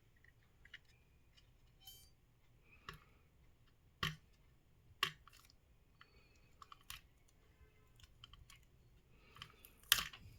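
Scattered sharp plastic clicks and taps from a wireless mouse's plastic shell being handled and pried apart. The shell is held only by old tape. The loudest click comes near the end.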